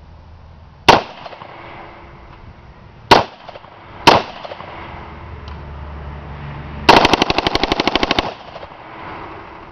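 Full-auto AR-15 rifle firing 5.56mm rounds: three separate shots a second or two apart, then a rapid burst of about a second and a half that empties the magazine, each shot with a short echo.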